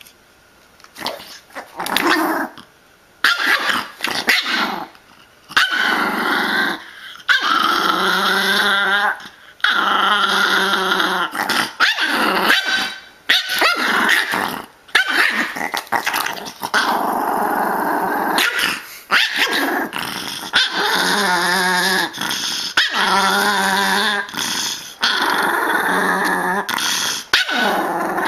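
Pomeranian growling in long unbroken stretches, broken by sharp barks and yips, as it attacks a TV remote held in front of it.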